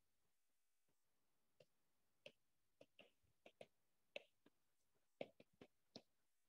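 Faint, irregular ticks of a stylus tip tapping on a tablet screen during handwriting, about a dozen scattered over a few seconds, over near silence.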